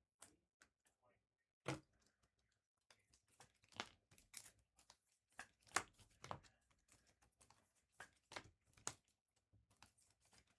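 Faint crinkling and tearing of foil trading-card pack wrappers as packs are ripped open and cards handled: an uneven scatter of short crackles and snaps.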